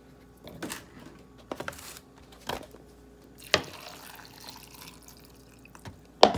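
Blueberries dropping into a plastic blender cup with a few short knocks. After a sharper knock, water pours from a plastic gallon jug over them, ending with another knock.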